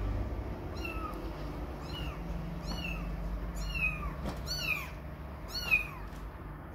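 Young kitten meowing over and over: about six short, high-pitched mews, roughly one a second, each rising and then falling in pitch.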